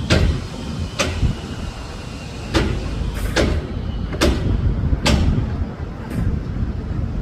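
Sharp knocks, about seven at irregular intervals of roughly a second, over a steady low rumble.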